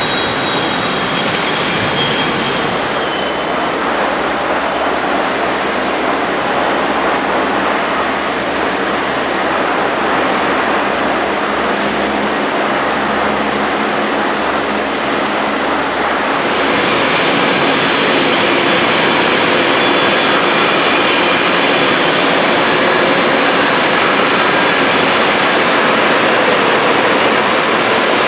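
Steel coil slitting line running: a loud, steady mechanical noise with faint high, steady whines, getting a little louder a bit past halfway.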